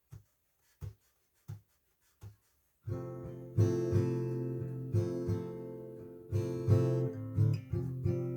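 Four soft taps, evenly spaced like a count-in, then an acoustic guitar starts strumming chords about three seconds in, the strums ringing on between attacks.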